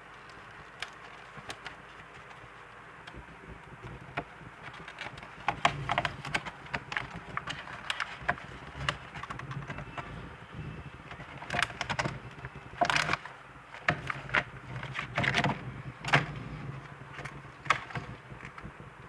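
Packaging being handled and opened: irregular crinkling, rustling and sharp clicks of plastic and cardboard. It starts as a few clicks and grows into busy crinkling from about five seconds in.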